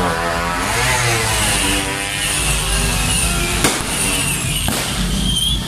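Street celebration with fireworks: motorcycle engines running under the din, with music fading out over the first couple of seconds. Two sharp firecracker bangs about a second apart come past the middle.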